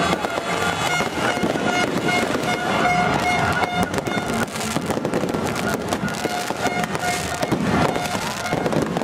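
Fireworks and firecrackers crackling and popping in rapid, dense succession, over a steady droning horn note, with a horn sliding up in pitch near the end.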